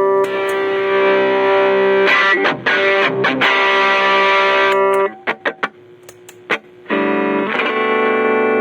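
Electric guitar played through a pedalboard with overdrive, letting chords ring out, picked up on a phone's microphone. About five seconds in the chords stop for a couple of seconds, leaving a few muted string scratches, and strumming resumes around seven seconds.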